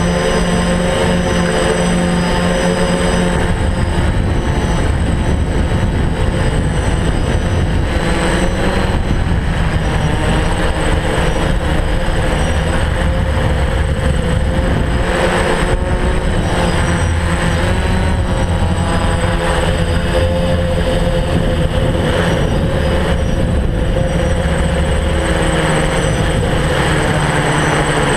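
DJI F550 hexacopter's six electric motors and propellers running steadily, heard from the GoPro on its frame, a loud multi-tone hum with a constant thin high whine above it. The pitch shifts slightly now and then as the motor speed changes.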